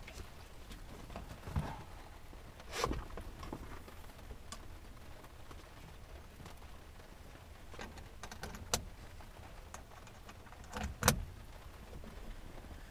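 Scattered knocks, clicks and rustles of a pilot handling gear inside a small plane's cockpit with the engine not running; the loudest knock comes near the end.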